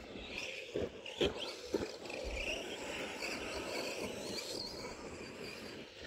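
Arrma Senton RC truck's electric motor whining, its pitch rising and falling with the throttle. About a second in there are three sharp knocks about half a second apart.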